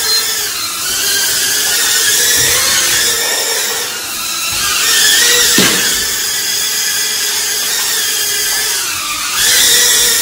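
Small remote-control toy drone's propeller motors whining in flight, the pitch sliding up and down as the throttle changes.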